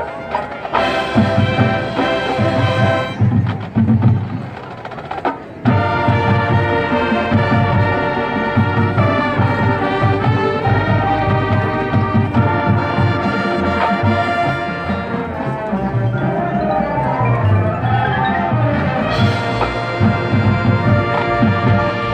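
A marching band playing: brass over percussion with a steady beat. The band drops quieter about four seconds in and comes back in full about a second later. Near the end, pitches sweep up and down and build into a louder full-band passage.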